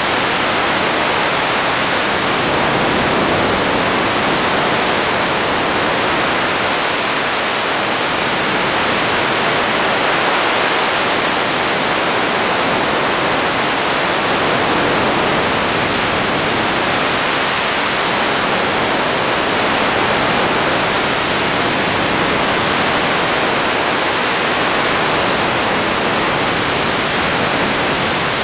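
Radio static: a steady, loud hiss with no tones or voices.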